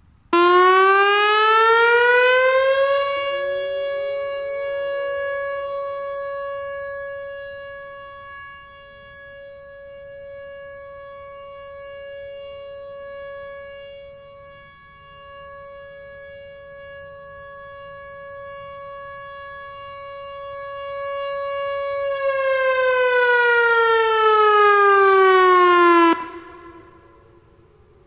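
Whelen WPS-3000 electronic outdoor warning siren sounding its steady alert tone in a routine test: it glides up in pitch for about three seconds, holds one steady tone for about twenty seconds, then glides back down and cuts off a couple of seconds before the end. Its loudness sinks through the middle and swells back as the rotating speaker head turns away and back.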